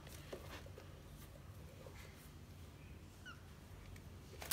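A kitten's paws scrabbling in clay cat litter and on the plastic rim of a litter tub, with a sharper scratch near the end, and a faint short kitten mew about three seconds in.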